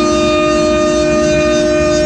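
Table-mounted router spinning a flush trim bit at high speed, a loud steady whine with several constant tones over it, while trimming the excess from the rim of a bandsawn wooden bowl.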